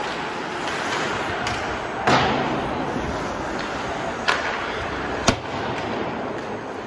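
Ice hockey play in an echoing rink: a steady wash of rink noise with three sharp knocks from sticks and puck, the first and loudest about two seconds in with a short ringing tail, then two more about two and three seconds later.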